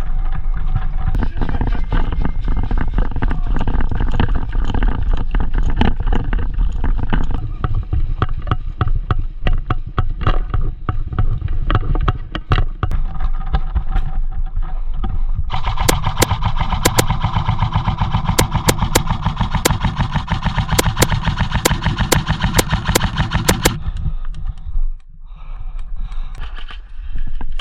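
Airsoft skirmish: rapid clicking and clattering of gunfire and gear through the first half. About halfway in, a long sustained burst of electric-motor-driven automatic airsoft fire buzzes steadily for about eight seconds, then cuts off.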